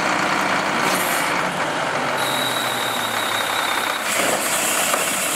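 Wittke Express manual side-load recycling truck running while stopped at the curb, with a steady hiss of air from about two seconds in.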